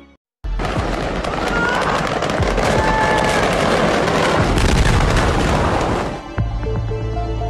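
Fireworks popping and crackling in a large warehouse fire: a loud, dense run of rapid sharp cracks over a steady roar. Music takes over at about six seconds.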